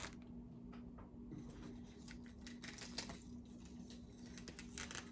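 Faint scattered clicks and light rustling of dog toys and their packaging being handled, over a steady low hum.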